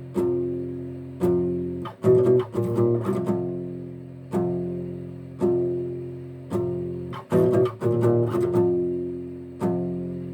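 Old warped acoustic guitar playing dark acoustic metal: low chords struck about once a second and left to ring out, with quick runs of notes twice, about two seconds in and again about seven seconds in.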